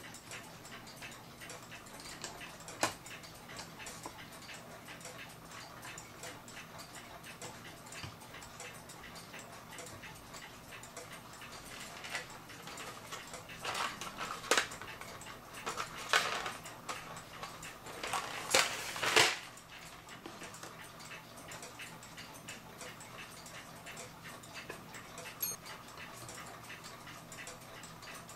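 Mechanical clock ticking steadily. Small sharp clicks and rattles of small clock parts being handled come once early and in a cluster through the middle.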